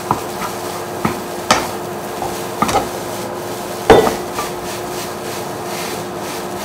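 Plastic spatula knocking and scraping against a nonstick wok while stir-frying and pressing apart cold rice: about seven sharp knocks, the loudest about four seconds in, over a steady hum.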